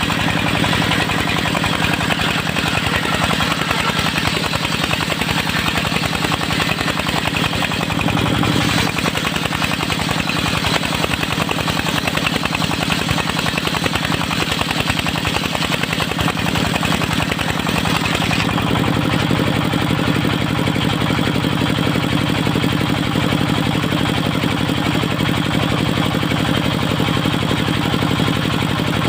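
The engine of a portable circular sawmill runs steadily with a fast, even firing beat. A bright, hissing upper layer sounds over it and drops away abruptly about two-thirds of the way through, leaving the engine alone.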